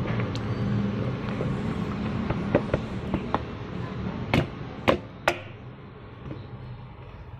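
Slices of upo (bottle gourd) being tipped into a metal pot of pork hock: light clicks, then three sharp knocks against the pot about four to five and a half seconds in, over a steady low hum.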